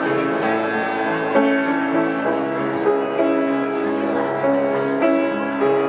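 Instrumental passage of a slow song's accompaniment between sung verses: held chords that change about every half-second to a second.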